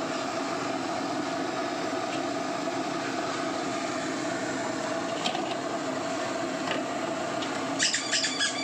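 A steady mechanical drone, with a quick run of sharp metallic clinks just before the end.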